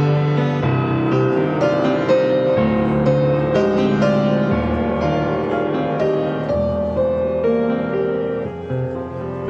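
Piano playing a slow hymn introduction: struck chords over a moving bass line, with no singing yet.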